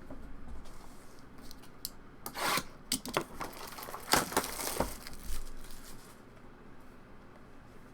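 A trading-card box being opened by hand: cardboard and wrapper rubbing and tearing in short bursts about two seconds in and again about four seconds in, with a few light knocks.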